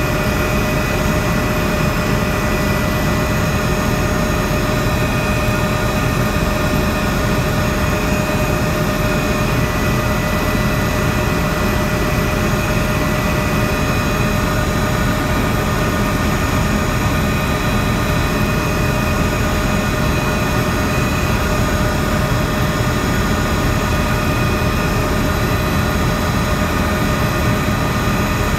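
Helicopter in steady flight, heard from aboard: continuous engine and rotor noise with a steady high whine over it.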